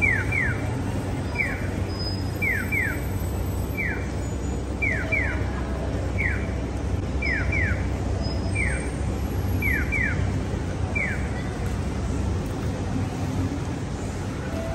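Japanese accessible pedestrian crossing signal giving its electronic "piyo" bird-chirp calls: quick falling chirps, a double answered by a single, repeating about every second and a quarter, which mark the walk light as green. It stops about eleven seconds in, over a steady hum of city traffic.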